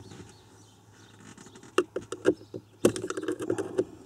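Small metal pick clicking and scraping against the plastic lens of a glove box courtesy light as it is pried at to pop it from its housing, which holds it tight. After a quiet second or so come a few sharp clicks, the loudest near three seconds, then scratchy scraping.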